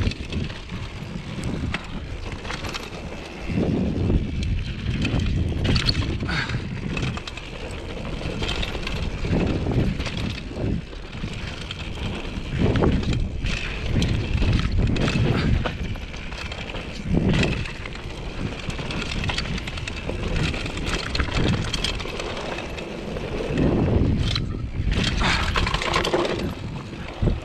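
2014 Giant Glory downhill mountain bike running fast down a dirt trail: tyres rumbling and crunching over the ground, with frequent knocks and clatter from the bike over bumps.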